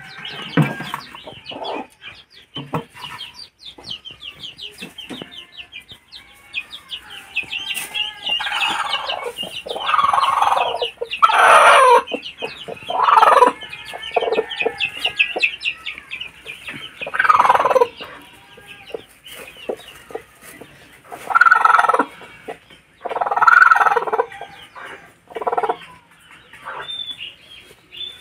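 Chickens clucking and calling: a run of fast, soft clucks in the first few seconds, then louder calls every second or two.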